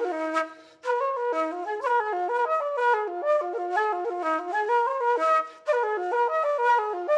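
Wooden Irish flute played solo: a quick traditional tune of rapid stepping notes, broken by two brief gaps, one near the start and one about two-thirds through.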